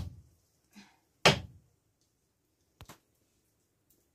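Large knife chopping raw meat on a wooden block: three sharp chops, at the start, about a second and a quarter in, and at the end, with a faint double tap between them.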